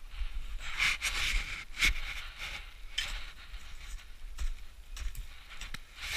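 Ice axe and boots plunging into snow: a run of soft crunches with a few sharp knocks.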